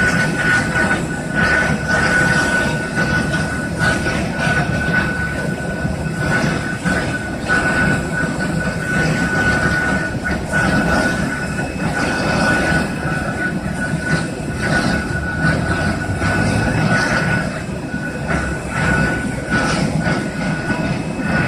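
Steady mechanical rumble of an Airbus A320 being pushed back, with a continuous high whine and occasional light knocks over it.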